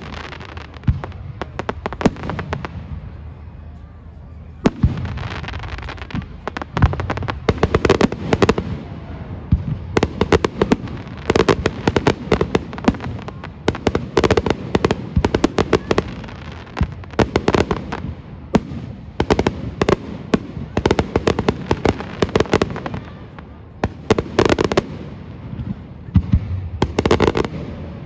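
Aerial fireworks going off in a fast, near-continuous barrage of bangs and crackles. There is a short lull a few seconds in, then a big bang starts a dense run of bursts that thins out just before the end.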